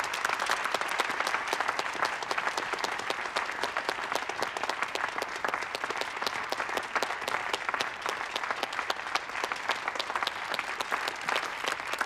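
Applause: many people clapping steadily.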